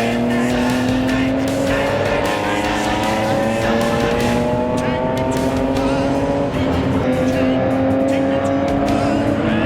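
Race car engine under hard acceleration, its pitch climbing steadily for about six seconds, then dropping at an upshift and climbing again.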